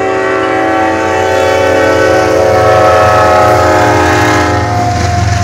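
CSX freight diesel locomotive's multi-chime air horn blowing one long, loud blast as it crosses the road, dipping slightly in pitch near the end as the locomotive goes by. Under it is the low rumble of the locomotive and the train's wheels.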